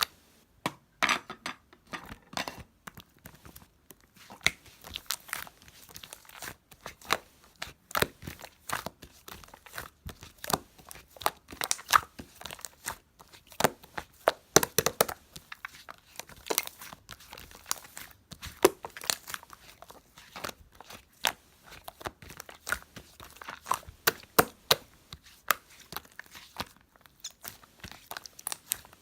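White, milky slime being squished and pulled by hand, giving irregular crackling clicks and sticky tearing sounds.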